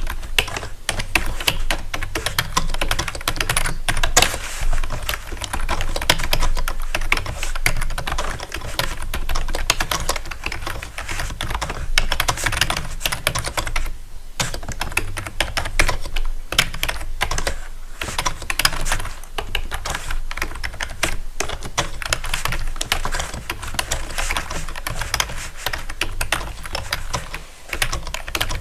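Typing on a keyboard: a fast, continuous run of key clicks, with a brief pause about halfway through.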